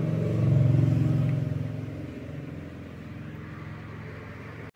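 Low engine hum of a passing motor vehicle, swelling about half a second in and fading to a quieter steady hum after about two seconds.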